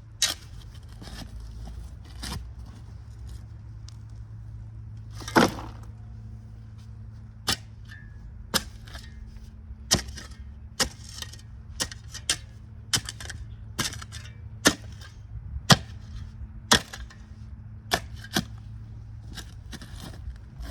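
A digging tool chopping into clay soil and tree roots: a string of sharp cracks, a few spaced out at first, then about one a second. A steady low hum runs underneath.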